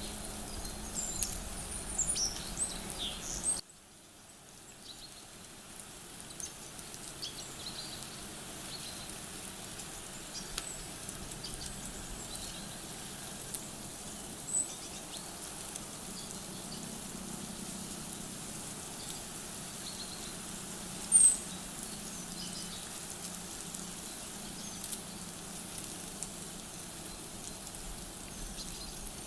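Small birds chirping and calling over a steady outdoor hiss. After a sudden drop in level a few seconds in, only scattered faint chirps remain, with one sharp high call about two-thirds of the way through.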